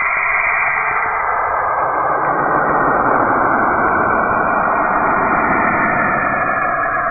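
Planetary radio emissions converted into sound: a dense, steady hiss like radio static that fills in lower down over the first couple of seconds.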